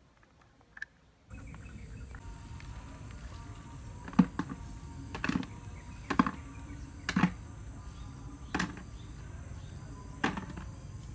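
Snail shells knocking one at a time as they are dropped into a plastic basin, about six sharp knocks spaced roughly a second apart. Under them is a steady high-pitched insect hum.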